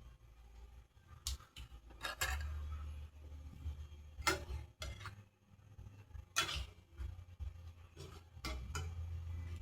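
Scattered clinks and knocks of dishes and cutlery being handled, over a low rumble.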